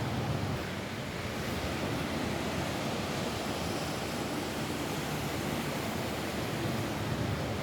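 Steady rain falling on a roof: an even, unbroken hiss with a deep low rumble.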